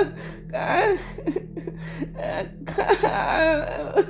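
A girl's voice making garbled, wordless vocal sounds, straining to speak without forming words: a mute child trying to make herself understood.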